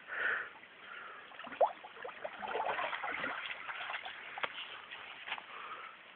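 A dog snuffling and rustling with its nose at a hole in the earth, an irregular sniffing and scuffling with a few brief faint squeaks.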